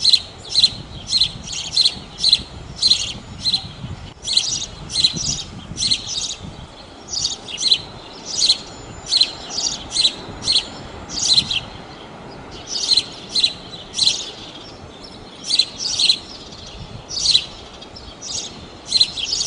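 A small bird chirping over and over: short, high chirps, about two or three a second, with a faint steady hiss underneath.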